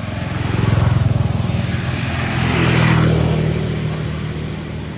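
A motor vehicle's engine running close by, with a fast even pulse, swelling about a second in and again around three seconds, then easing off as it passes.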